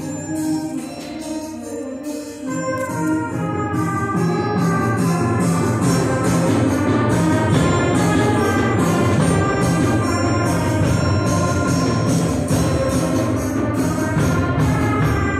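School concert band playing a brass-heavy piece with tubas, baritones and trumpets. A steady repeating bass line and a regular percussion beat come in about two and a half seconds in.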